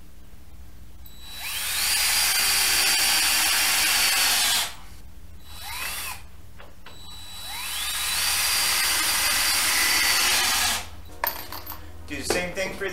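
Cordless drill running twice, each time winding up with a rising whine, holding steady for about three seconds and cutting off sharply as it works into the base of a plywood wall. A few light knocks and clatters come near the end.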